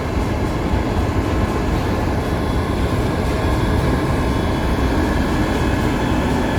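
Heavy snow-removal machine working: a loud, steady engine drone with a continuous rushing noise over it.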